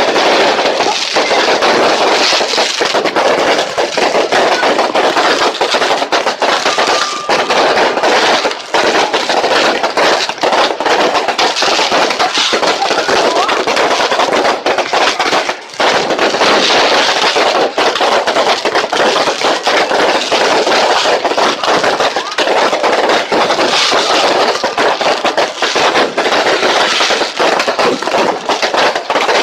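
Fireworks going off in a dense, nearly continuous barrage of crackling and popping bursts, with one brief lull about halfway through.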